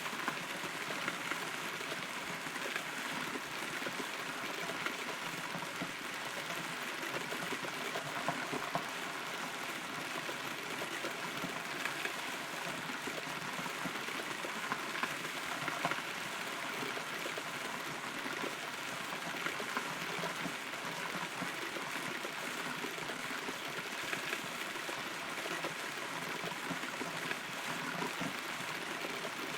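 Steady rain heard from inside a hollow, rotten tree trunk, with scattered louder drops striking close by.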